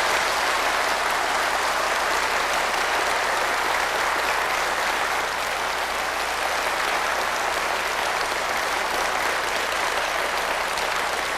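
A large lecture-hall audience applauding, a dense steady clapping that swells in at the start and dies away near the end.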